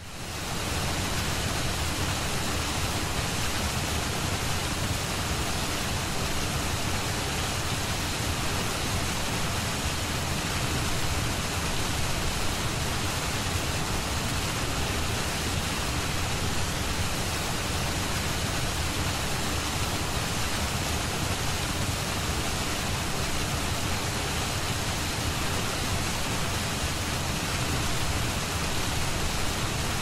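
Steady, even rushing noise spread across all pitches, with no rhythm, tone or change in level, cutting in abruptly right at the start.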